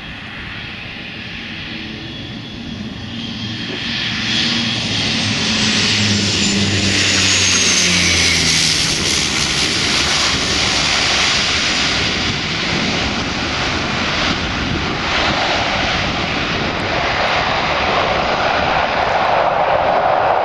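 Twin turboprop engines of a Piper PA-31T Cheyenne II on approach, with a high whine that falls in pitch as the plane passes. The sound swells into a louder rushing roar about four seconds in as it touches down and slows on the runway, then settles to a steady turbine roar as it rolls away.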